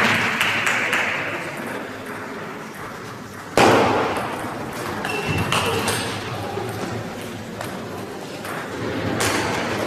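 Table tennis rally: a celluloid ball clicks off bats and the table again and again. About a third of the way in comes one much louder, sharp hit that echoes around the hall.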